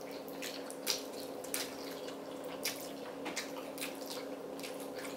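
Two people chewing and slurping chewy spicy noodles, with irregular wet smacking clicks every half second or so over a faint steady hum.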